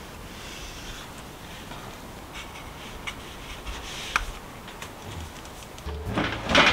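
Quiet scraping and a few faint clicks, then about six seconds in a loud clunk and rattle as the oven door is opened for the baking tray of scones.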